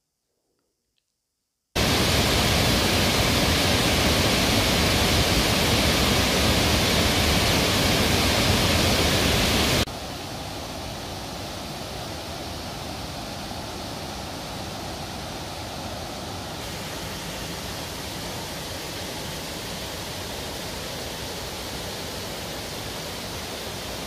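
Waterfall in full, heavy flow: a steady rush of water cascading over rock steps. It starts abruptly after a moment of silence and drops to a lower, still steady level about ten seconds in.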